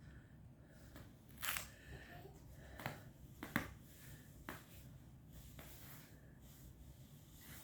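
Quiet room with four short, faint rustles and clicks, the loudest just past the middle, like cloth or small things being handled.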